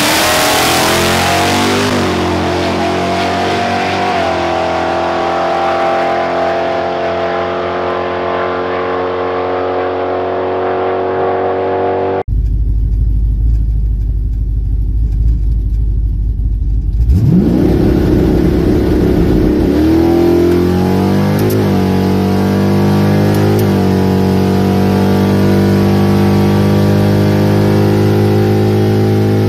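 2011 Ram R/T's modified 5.7 HEMI V8 drag truck, heard first from outside settling from a hiss into a steady idle. After a cut, from inside the cab, it rumbles low at the line, then launches about 17 seconds in, revving hard and rising in pitch through the gear changes on a full-throttle pass past 100 mph.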